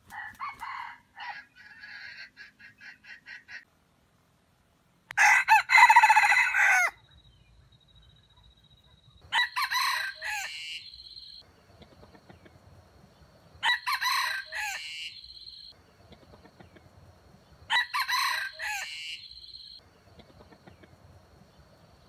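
Red junglefowl rooster crowing four times, about four seconds apart, each crow lasting about two seconds, with the first crow the loudest. It opens with a quick run of short clucks.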